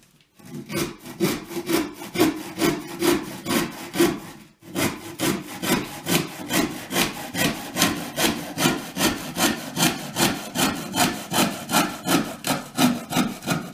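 Handsaw cutting through a wooden board by hand, in steady back-and-forth strokes at about three a second, with a brief pause about four and a half seconds in.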